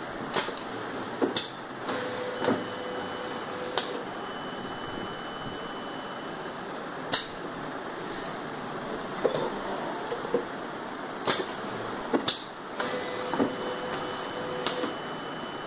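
Semi-automatic square-bottle labeling machine working: a steady motor whine for about two seconds, twice, as it runs a labeling cycle, amid scattered clicks and knocks of the mechanism and bottles being handled, over a steady machine hum.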